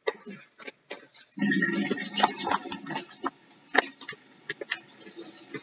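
Plastic bag of brown sugar crinkling and rustling as it is squeezed and tipped over a plastic measuring cup, with sharp crackles and clicks throughout. A louder, denser patch of rustling comes about a second and a half in and lasts a couple of seconds.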